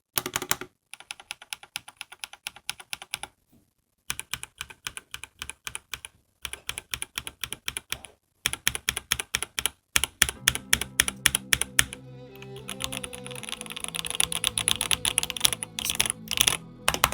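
Fast typing on a Royal Kludge RK98 mechanical keyboard with linear Speed Silver switches: rapid runs of keystrokes in bursts with brief pauses between them. Background music comes in about two-thirds of the way through, under the typing.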